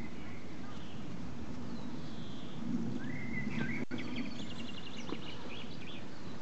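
Outdoor ambience: songbirds chirping over a steady low rumble, with a quick run of rapid high chirps about halfway through.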